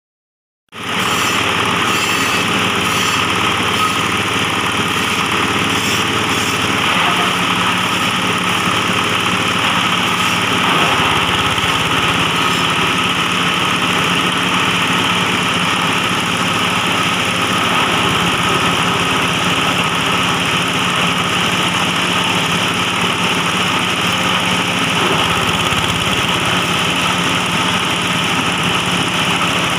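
Belt-driven grass chopper and hammer mill running at speed, a loud, steady mechanical drone of its power unit and spinning rotor, while grass stalks are fed through it and chopped. The sound comes in abruptly about a second in.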